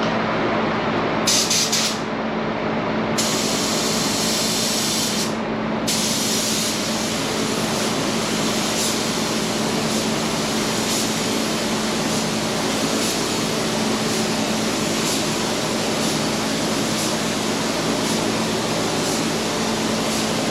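Paint spray gun spraying, a hard air hiss that cuts in and out twice in the first six seconds as the trigger is pulled and released, then runs on without a break. A steady hum sits underneath.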